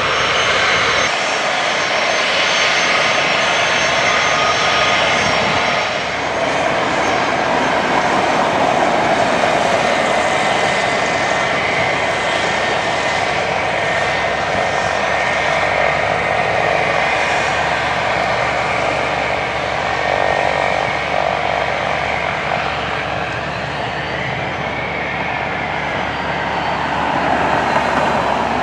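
Twin rear-mounted turbofan engines of a business jet running at low power as it taxis, a steady jet whine with a high-pitched ringing tone over the rush of engine noise.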